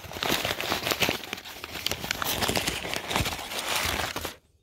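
Packing wrap crumpled and crinkled by hand as an item is unwrapped, a dense crackle of many small clicks that stops abruptly about four seconds in.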